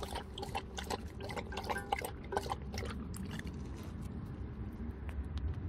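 A Pungsan dog lapping water from a stainless steel bowl: a rapid series of wet laps that thin out after about three seconds as it stops drinking.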